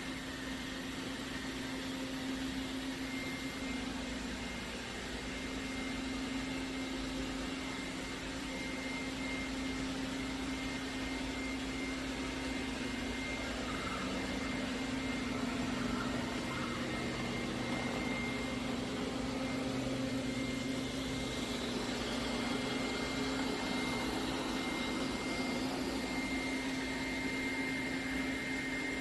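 Robot vacuum running: a steady motor hum with a thin, constant high whine.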